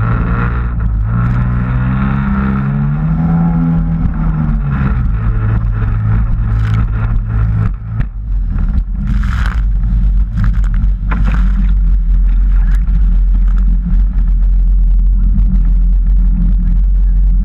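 Sea-Doo jet ski engine rising in pitch as it accelerates, then running steadily, with water spray hitting the craft. About eight seconds in, the clear engine note drops away, leaving a low rumble and splashing.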